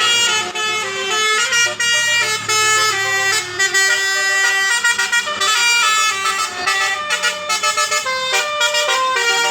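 Bus 'telolet basuri' multi-tone musical horn playing a quick melody, its notes stepping from pitch to pitch, with a fast run of short stuttering notes near the end. A low engine hum runs under the first few seconds.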